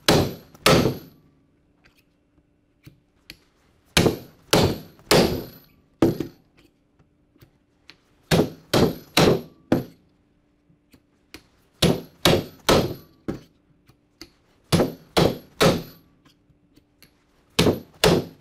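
A 4-pound hammer striking a three-prong rivet driver, driving BR rivets through the fastener plates and conveyor belt into the guide-block tool. Hard blows come in sets of three, about half a second apart, with a new set every three to four seconds; by the third blow of a set the rivets have bottomed out on the tool.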